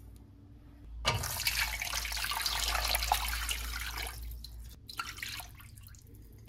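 Water running, starting abruptly about a second in, pouring steadily for a few seconds, then breaking off and trickling away.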